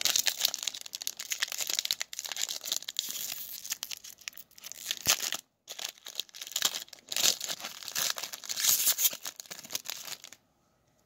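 Foil trading-card pack wrapper being torn open and crinkled by hand, crackling in irregular bursts with a short break about halfway; it stops shortly before the end.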